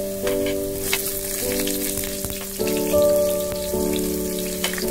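Chopped garlic and sliced shallots sizzling and crackling in hot oil in a wok, under background music of held chords that change about once a second.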